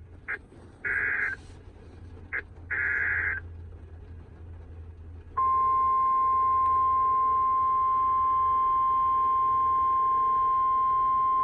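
NOAA Weather Radio alert signal: two short buzzing bursts of SAME digital header data, then, about five seconds in, the steady 1050 Hz warning alarm tone comes on. The tone announces a new warning, here a severe thunderstorm warning from the National Weather Service.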